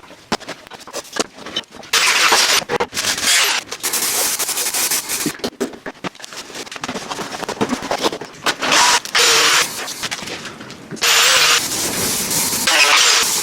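Workshop sounds: several bursts of a power tool, each lasting a second or so, among many sharp clicks and knocks.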